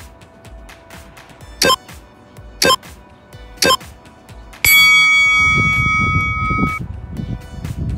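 Tabata interval timer beeping: three short countdown beeps a second apart, then a longer tone of about two seconds that marks the end of the 20-second work interval. A low rumbling noise comes in a little after the long tone starts.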